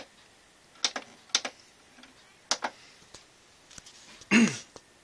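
A handful of sharp, separate clicks of buttons being pressed on a television to switch its input. About four seconds in comes a louder short sound whose pitch falls.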